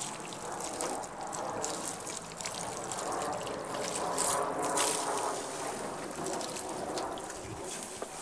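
Water trickling and running over a car's waxed paintwork as it sheets off the roof and bonnet, a steady splashy hiss that grows louder about halfway through.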